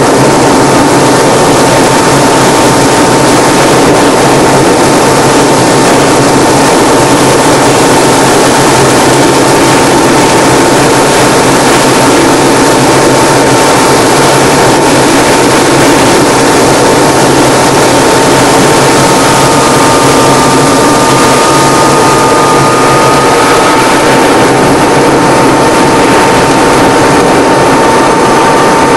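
Piston engine and propeller of a single-engine aerobatic aircraft, heard loud from inside the cockpit, running steadily at power through rolling manoeuvres, with a constant high whine over the engine drone.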